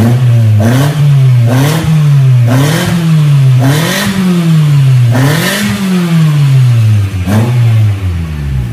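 Proton Inspira's four-cylinder petrol engine revved over and over, its pitch rising and falling about once a second. It runs through a trial aftermarket muffler held up to the exhaust outlet, trying the muffler for sound.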